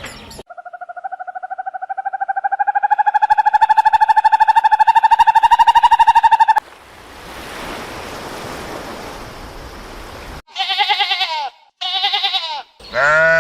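A string of animal calls edited back to back: a long, rapid pulsing trill that grows louder for about six seconds and cuts off suddenly, then a few seconds of hiss, then three short wavering calls near the end.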